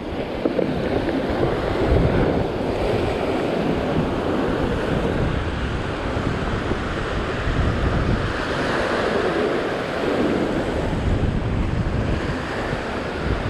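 Ocean surf breaking and washing over a rock ledge in a steady rush, with wind buffeting the microphone.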